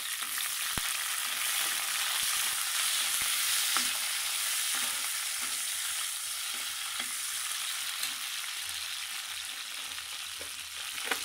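Browned onions and green chillies sizzling in hot oil in a metal pot, with a steady hiss, and a slotted metal spatula stirring and now and then clicking against the pan.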